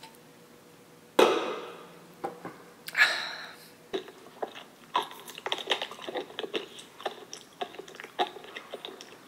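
Crunchy eating: two loud crunching bites about two seconds apart, followed by a run of small, irregular crunches of chewing.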